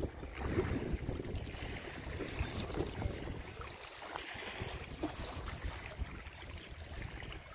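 Wind gusting against the microphone, an uneven low rumble with a steady rushing hiss above it.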